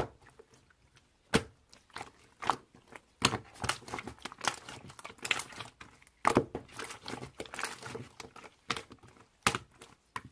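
Irregular crinkling and crunching, with sharp crackles coming in uneven clusters.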